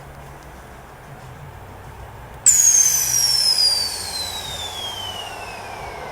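Air-suspension solenoid valve block on an IZh 2715 van dumping air from the air bags: a sudden loud hiss about two and a half seconds in, with a whistle that falls steadily in pitch as the hiss fades.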